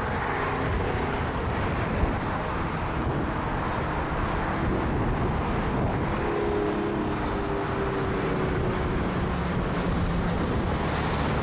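Airliner jet engines in strong gusty wind: a steady rushing noise, with a faint engine whine coming in about six seconds in.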